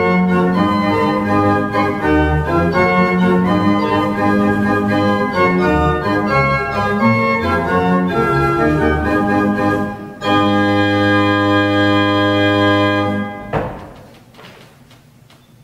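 The 1751 Martin Podkonický baroque pipe organ playing a sixteenth-century Renaissance dance: a lively passage of moving lines over a low bass, then a held chord from about ten seconds in that cuts off sharply near the end and rings out briefly.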